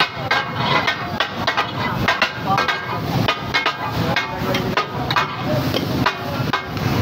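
Metal spatulas striking a large flat iron tawa griddle as fish katakat is chopped and tossed. The strikes come as a quick, uneven clatter of metal on metal, a few a second. This clatter is the sound the dish katakat is named after.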